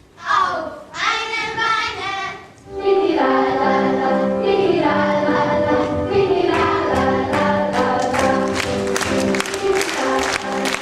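Children singing a song with instrumental music. From about three seconds in, held accompaniment notes set in, and from about halfway a steady beat of sharp taps joins.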